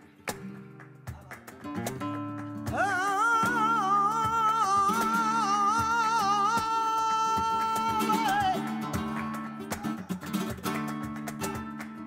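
Flamenco cante: a woman's voice holds one long, wavering, ornamented note from about three seconds in until about eight and a half seconds, over a Spanish flamenco guitar that strums and picks before, under and after it.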